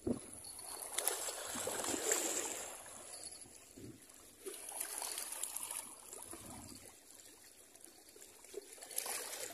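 Small sea waves washing over breakwater rocks and trickling off them, swelling and ebbing in slow surges.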